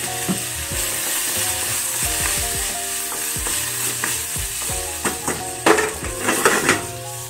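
Rice frying in a hot nonstick wok, sizzling steadily as it is stirred and scraped with a wooden spatula, the soy sauce just added. A short run of louder scrapes and knocks near the end.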